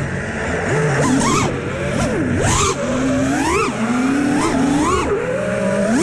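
FPV freestyle quadcopter's brushless motors and propellers whining, the pitch swooping up and down about once a second as the throttle is punched and cut in flight.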